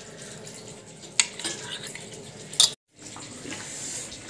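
Steel utensils clinking against a stainless steel bowl, with two sharp metallic knocks, about a second in and again near the middle. The sound cuts off abruptly, then gives way to quiet room noise.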